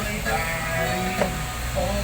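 Background music with held melodic notes, and one sharp knock a little over a second in.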